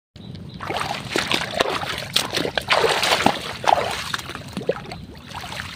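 Irregular splashing and sloshing of shallow water among water hyacinth and bamboo stakes as a person moves and works in it, with many short sharp splashes and knocks.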